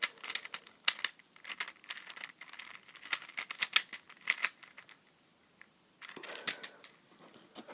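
Infinity cube fidget toy being flipped and folded in the hands, its plastic blocks clacking together in quick, irregular clicks, with a pause of about a second five seconds in.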